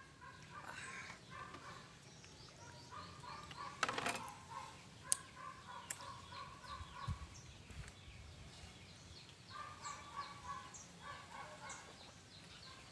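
Domestic fowl calling in several runs of short repeated notes, each run a second or two long with pauses between. A sharp knock about four seconds in and a click about a second later.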